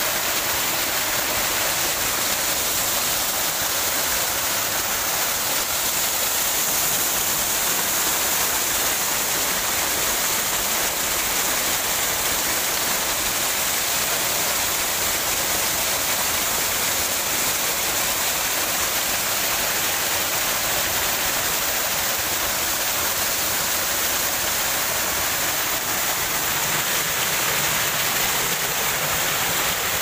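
Small forest waterfall splashing over rocks into a pool: a steady, even rush of water.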